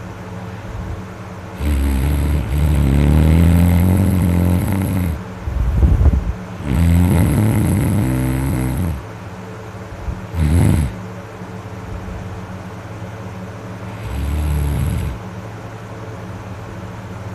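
A sleeping person snoring loudly: two long snores, then a short one and another a few seconds later, with quieter breathing between them.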